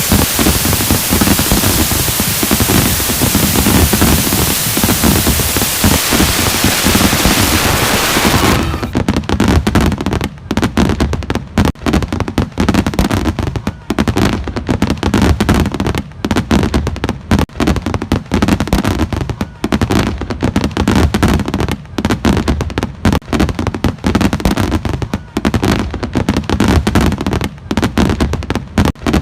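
Fireworks display: a dense hissing crackle for about the first eight seconds, then a rapid, irregular barrage of pops and bangs with a deep rumble underneath.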